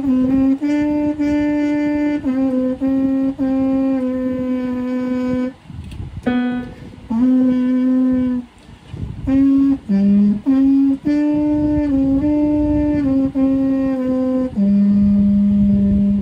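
Trumpet playing a slow line of held notes, moving mostly by small steps, with two short breaks partway through, ending on a long low note.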